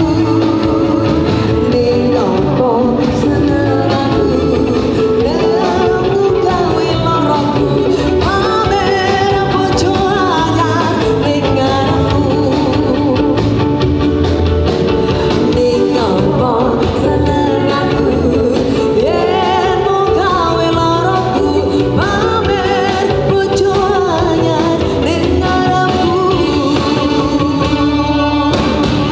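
A woman singing a pop song into a handheld microphone, backed by a live band of drums, bass guitar and keyboards.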